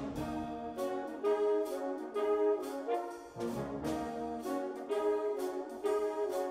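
Jazz ensemble playing, led by a brass section of trumpets and trombones in rhythmic chordal figures, punctuated by sharp percussive hits.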